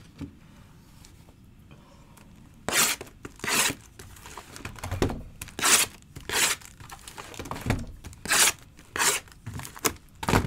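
Plastic wrapping on trading-card packaging being torn and crinkled in a run of quick rips, about one every 0.7 seconds, starting about three seconds in.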